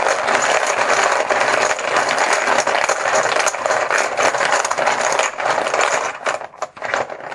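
A handful of team chips being shaken and stirred in a container for a random draw: a continuous dense clatter of many small clicks that thins into a few separate clicks near the end.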